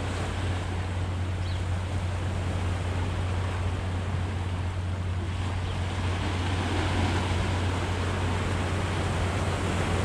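Sea surf washing steadily against the rocks of a jetty, with wind on the microphone.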